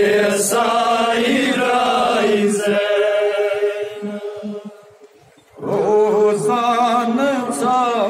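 A man chanting a nowha, a Shia lament, into a microphone in long drawn-out melodic lines. One line fades out about four and a half seconds in, and a new line starts about a second later.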